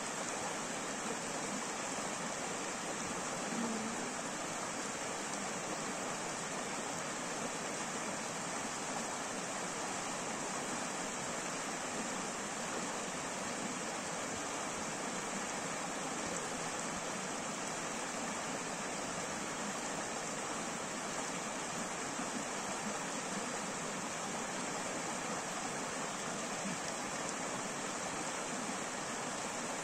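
Shallow rocky stream flowing over stones and small cascades: a steady, even rush of water.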